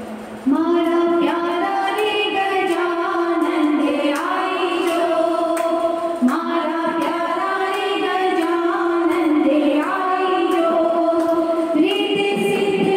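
Women singing a devotional kirtan, led by one voice into a handheld microphone, in long drawn-out notes, with steady hand claps keeping time. The singing starts about half a second in.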